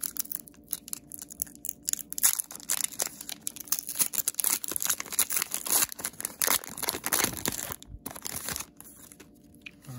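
Foil wrapper of a Pokémon Astral Radiance booster pack crinkling and tearing as it is peeled open by hand, in quick irregular crackles that die down near the end.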